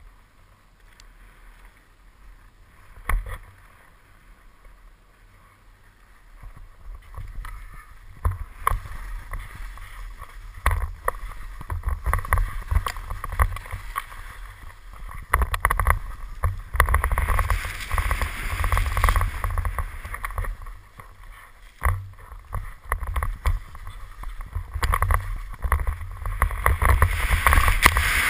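Skis sliding and scraping down a snowy chute, with wind rumbling on the body-mounted camera's microphone. Fairly quiet at first apart from a sharp knock about three seconds in, then louder and rougher from about eight seconds in as the skier picks up speed through the snow.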